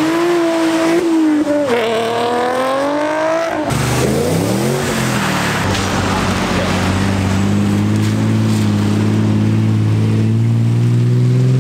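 Car engines at full cry on a wet road: first a high, wavering rev from a Holden Commodore ute sliding through a turn. Then, after a sudden cut, a lower engine note from a Nissan Skyline R34 holds steady and climbs in pitch as it accelerates away near the end.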